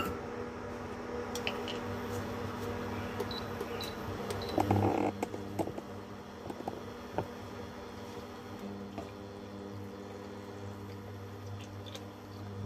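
Induction cooktop humming as it heats ghee in a steel kadhai, the buzz growing stronger about two seconds in and again near the end. A few light clatters about five seconds in.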